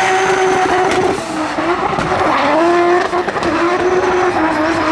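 Drift car, an orange BMW 1 Series coupe, sliding sideways with its engine held high on the throttle and its rear tyres spinning into smoke. The engine note wavers and dips briefly about a second in and again at about three seconds.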